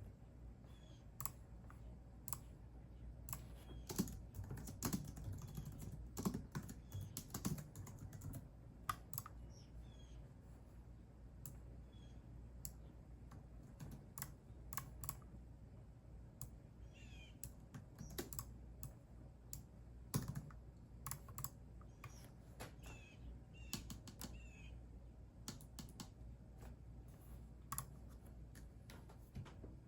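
Typing on a computer keyboard: irregular keystroke clicks in short runs and pauses. Faint bird chirps come through now and then.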